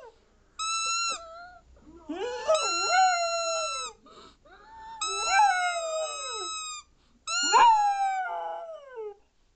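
A dog howling along to a whistle: a steady, high whistle tone sounds four times, and the dog answers with long howls that slide down in pitch.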